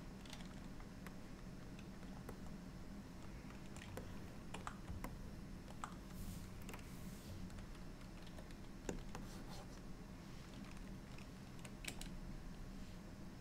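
Sparse, irregular clicking of computer keys at a desk while working in software, over a faint steady low hum.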